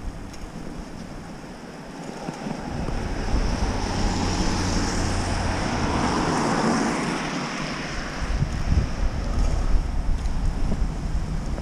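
Wind buffeting the microphone on a moving bicycle, over the hiss of tyres on a rain-wet street. The hiss swells about a quarter of the way in and eases off again after about eight seconds.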